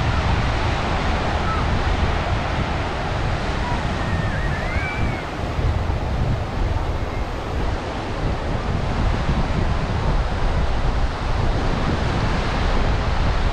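Sea surf washing onto the beach in a steady, continuous rush, with strong wind buffeting the microphone.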